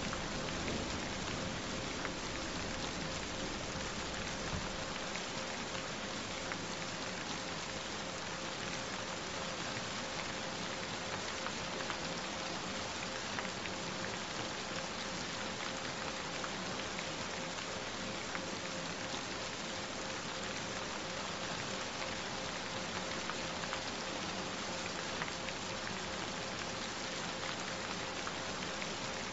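Steady rain falling, a dense patter of drops, with a faint steady tone running underneath. A low rumble dies away about five seconds in.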